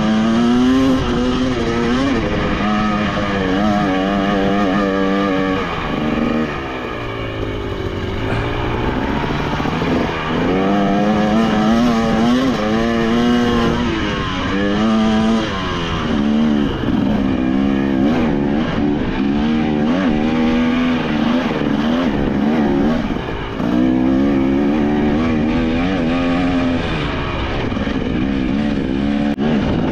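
2023 KTM 300 XC two-stroke dirt bike engine being ridden on a trail, its pitch rising and falling with the throttle and gear changes. It eases off briefly about six seconds in and again about three-quarters of the way through.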